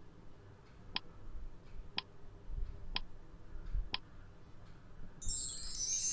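Quiz countdown-timer sound effect: four sharp ticks one second apart, then a high shimmering chime about five seconds in as the answer is revealed.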